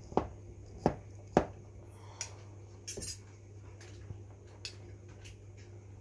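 Metal fork and knife clinking against a steel cooking pot while cutting up chunks of ham and vegetables in a stew: three sharp clinks in the first second and a half, then a few lighter taps. A steady low hum runs underneath.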